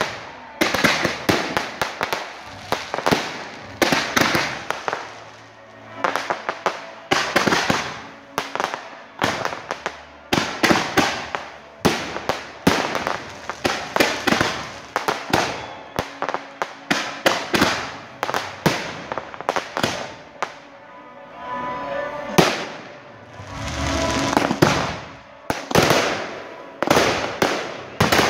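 Aerial fireworks display: shots and shell bursts going off in rapid volleys, sharp bangs mixed with crackling, with a couple of short lulls between volleys.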